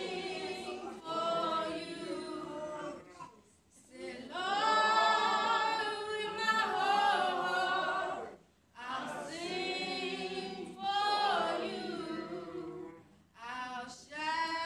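A woman singing a gospel solo with no instruments, into a microphone over the church loudspeakers, in long sustained phrases with short breaks for breath between them.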